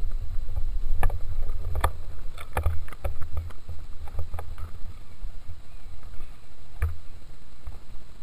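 Water slapping and knocking against a radio-controlled boat's hull, with irregular knocks over a steady low rumble, heard from a camera mounted on the boat.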